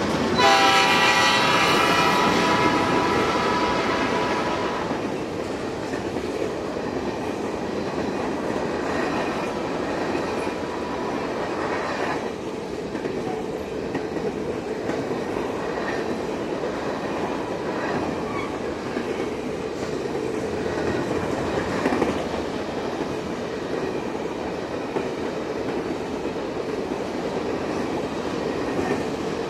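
Freight train passing at speed: the GE diesel locomotives' horn chord sounds loudly as they go by and fades away within the first few seconds. Then a long string of empty covered grain hopper cars rolls past with a steady rumble and clickety-clack of wheels over the rail joints.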